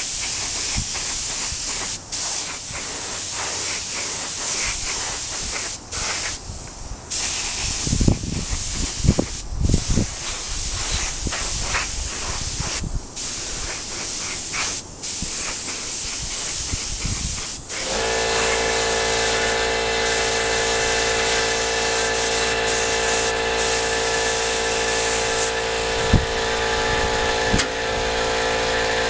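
Compressed-air paint spray gun hissing as it sprays red paint, the hiss stopping briefly several times as the trigger is released, with gusts of wind buffeting the microphone. About two-thirds of the way in, an air compressor starts up and runs with a steady hum under the hiss.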